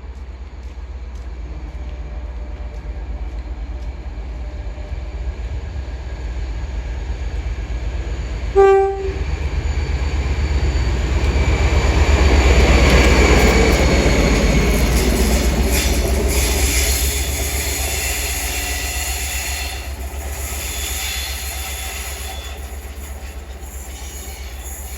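West Coast Railways class 57 diesel locomotive 57012 passing at speed: a short horn blast about eight seconds in. Then the engine and the wheels on the rails grow loud, peak a few seconds later and fade as the train goes by.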